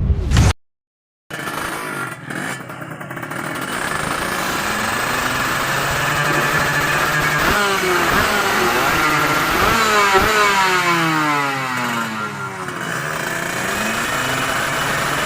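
Several motorcycle engines revving, with overlapping engine notes that rise and fall in pitch. The sound cuts out completely for under a second near the start.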